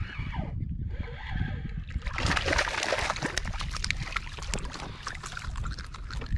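A hooked porgy thrashing and splashing at the water's surface beside a kayak as it is reeled up and lifted out, starting about two seconds in. A steady low rumble runs underneath.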